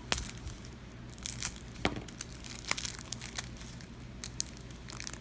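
Crinkling and tearing of a plastic wrapper around a stack of trading cards as it is opened, in irregular crackles and rustles.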